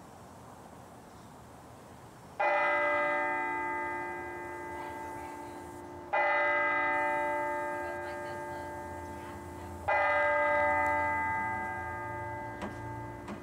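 Clock tower bell striking the hour: three strokes about four seconds apart, each ringing out and slowly fading.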